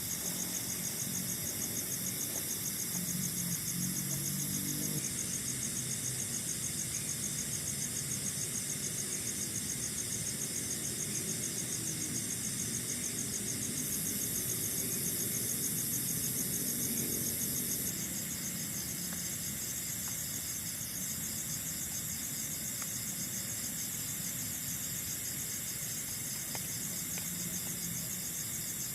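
Night chorus of crickets and other insects: steady high-pitched trilling with a fast pulsing layer, the upper voices shifting a few times.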